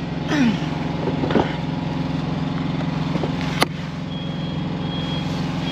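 Heavy truck diesel engine idling steadily, with one sharp knock a little past the middle. About two-thirds of the way in, a vehicle's reversing alarm starts beeping in short, high beeps.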